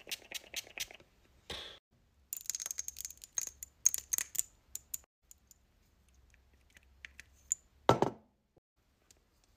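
A few quick pumps of a Mario Badescu facial mist spray bottle, then the clicks and clinks of a glass skincare bottle and its pump being handled. One louder dull thud comes about eight seconds in.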